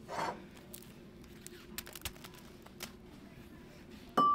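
Vases being handled on a store shelf: a few faint small taps, then near the end a sharp clink that rings briefly, followed by a second knock.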